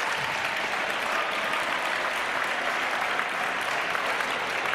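Crowd applauding steadily, the dense patter of many hands clapping at once.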